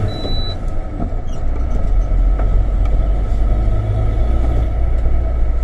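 Hino 500 FM260JD truck's six-cylinder diesel engine, heard from inside the cab while driving on a dirt road. The sound dips briefly about a second in as the driver changes up a gear, and the engine note is lower afterwards.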